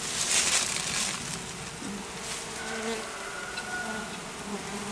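Honeybees buzzing around an opened bee package, single bees now and then flying close with a short hum. A brief rustling noise in about the first second is the loudest thing.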